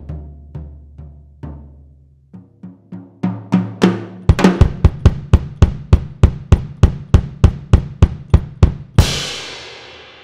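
Drum kit playing over a low held note. A few spaced hits fade away, then a steady run of hard hits at about three a second builds up, ending on a loud ringing crash about nine seconds in that fades out.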